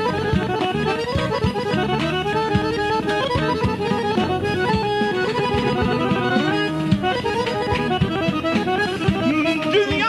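Live traditional ensemble playing an instrumental passage: a fast, ornamented melody over steady drum beats.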